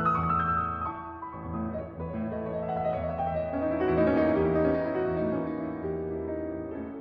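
Background piano music: slow, sustained chords and melody notes.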